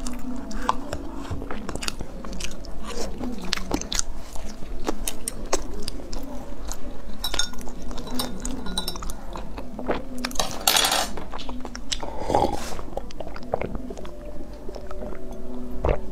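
Close-miked chewing of soft bread, with many small wet mouth clicks and smacks.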